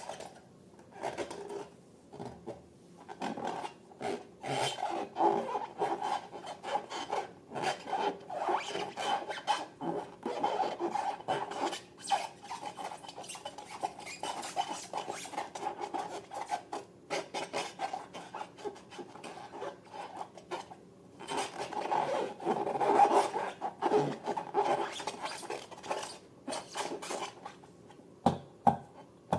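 Quick, uneven rubbing and scraping strokes as materials are worked by hand in slime making, with a short pause about 21 seconds in.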